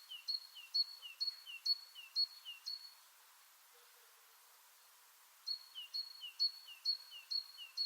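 A songbird singing two phrases of about six to seven quick repeated notes, each a short high whistle followed by a falling slur, with a pause of about two and a half seconds between the phrases.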